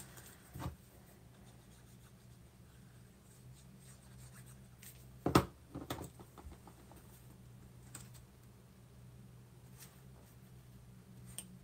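Paper and card stock being handled, rubbed and pressed flat on a desk, with small taps and one sharp knock about five seconds in. A faint steady low hum runs underneath.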